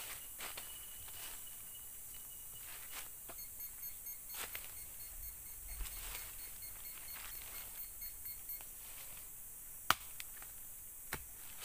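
Small hand digging tool scraping and chopping into soil and leaf litter, in irregular strokes, with one sharp strike about ten seconds in.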